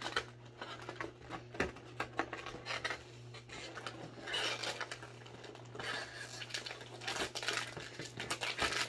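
Cardboard advent calendar box being handled and its perforated door pulled open: scattered taps, scrapes and rustles of cardboard, with crinkling as the treat packet inside is reached.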